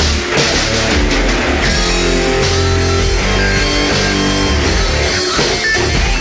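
Background rock music with electric guitar and a drum kit.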